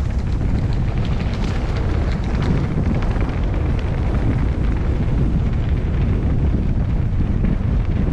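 Loud, steady wind buffeting on the camera microphone, a low rumble that never lets up, with a scatter of faint ticks and rattles over it.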